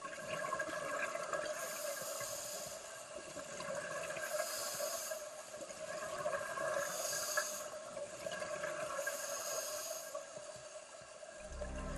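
Scuba regulator breathing heard underwater through a camera housing: a short hiss of air about every two and a half seconds over steady noise.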